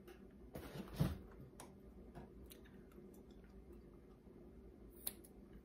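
Scissors cutting through yarn: a few faint snips and clicks, the sharpest about a second in and another near the end.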